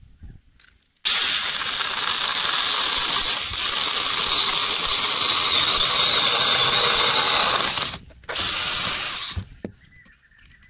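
Small electric chainsaw cutting across the top of a wooden fence post: a steady high whine over loud chain-and-wood noise that starts about a second in. It stops briefly near eight seconds, runs again for about a second more, then cuts off.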